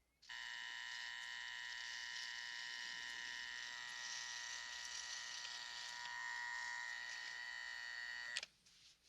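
A steady, even electric buzz that starts suddenly and holds unchanged for about eight seconds, then stops abruptly with a click near the end.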